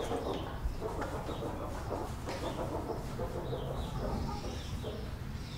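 Chickens clucking in a run of short repeated calls, over a steady low rumble.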